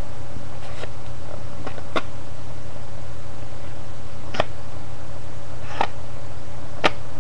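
A steady low hum, with four light clicks from a pencil and playing cards in a plastic-sheet holder being handled; the sharpest click comes near the end.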